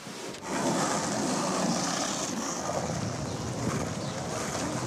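Steady rushing outdoor noise, mostly wind buffeting the microphone, starting about half a second in.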